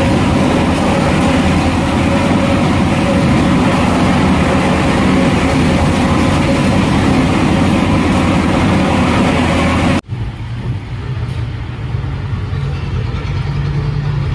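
A fishing boat's engine running steadily with a loud drone, cut off abruptly about ten seconds in and replaced by a quieter low engine hum.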